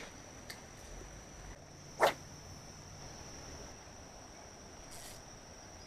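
An insect trilling steadily on one high tone, with a single sharp knock about two seconds in that is the loudest sound.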